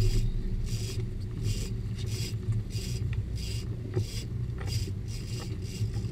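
Steady low rumble of the fishing boat's engine, with a rhythmic scraping hiss about three times a second from the big-game reel being cranked as the angler fights a tuna.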